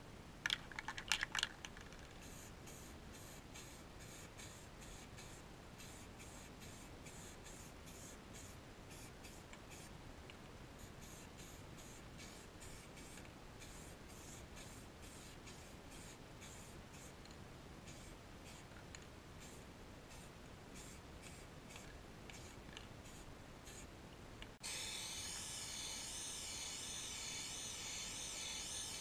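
Faint handling clicks and small scrapes as plastic toy parts are hung on wire, with a few louder rattles about a second in. About 25 seconds in, a compressed-air paint spray gun starts a loud, steady hiss as it sprays paint.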